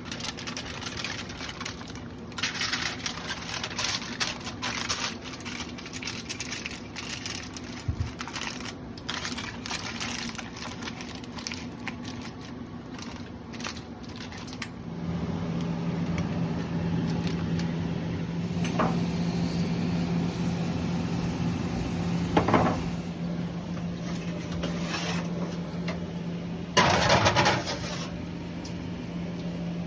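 Handling noises, with clicks, scrapes and clatter, then a steady low mechanical hum from a motor or fan starting about halfway, with a few louder knocks over it.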